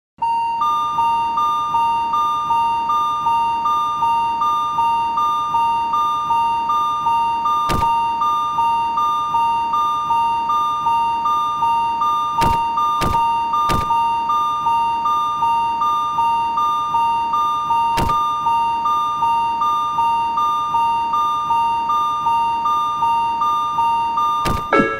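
Japanese railroad crossing alarm ringing its 'kan-kan', two tones alternating about twice a second, with several sharp clicks over it. It stops just before the end.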